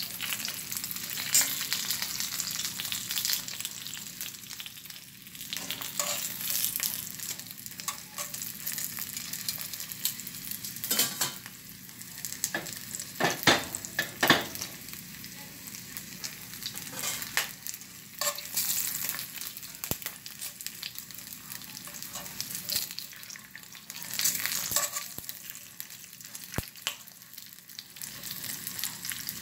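Pork belly chunks searing in hot oil in a cast-iron skillet, with a steady sizzle. A few sharp clicks from metal tongs against the pan come a little past the middle as the pieces are turned.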